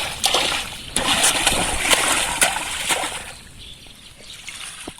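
Water splashing in repeated sharp splashes, about two a second, dying away after about three seconds.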